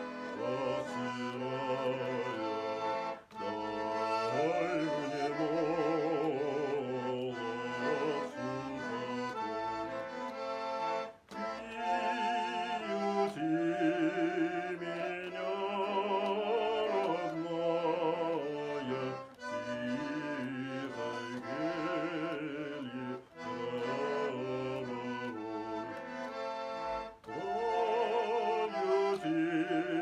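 Nizhny Novgorod garmon, a Russian button accordion built by V. L. Kondratyev, played in C major to accompany a man singing a slow folk melody with vibrato. The music breaks briefly between phrases every few seconds.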